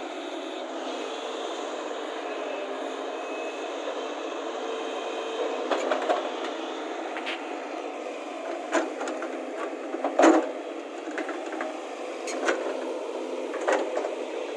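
JCB backhoe excavator's engine running steadily, with several sharp metal clanks from about six seconds in, the loudest about ten seconds in.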